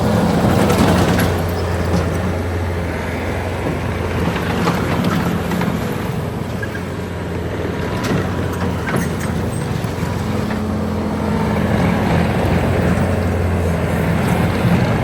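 Bobcat T630 compact track loader running under its diesel engine, the engine speed shifting up and down as it drives and works its hydraulics, with occasional clanks and rattles from the machine.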